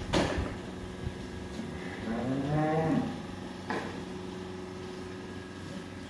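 A Holstein dairy cow moos once, a call of about a second that rises and falls in pitch, a couple of seconds in. There is a sharp knock just at the start and another a little after the moo, over a steady hum.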